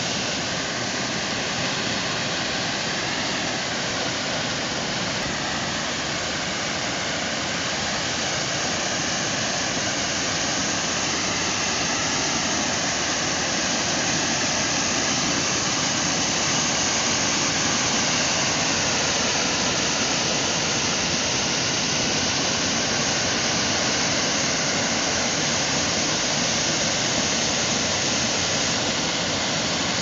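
Small waterfall pouring over a wide rock ledge into a shallow pool: a steady rushing of falling water.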